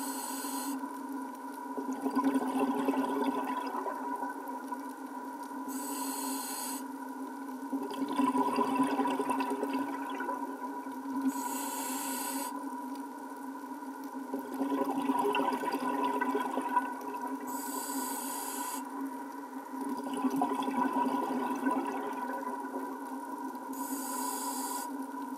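Scuba diver breathing through a regulator underwater: five breaths about six seconds apart, each a short hissing inhale followed by a longer rush of exhaled bubbles, over a steady hum.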